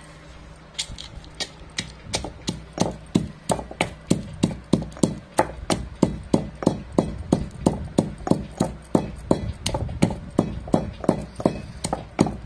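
Stone pestle pounding whole spices (coriander seeds, black peppercorns, dried red chillies) in a stone mortar, a steady run of sharp knocks at about three strikes a second, starting about a second in.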